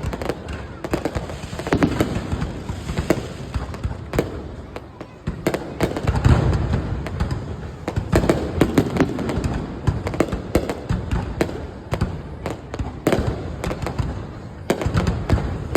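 Fireworks display: a dense run of sharp bangs and crackles from bursting shells, loudest in a cluster of deep booms about six seconds in.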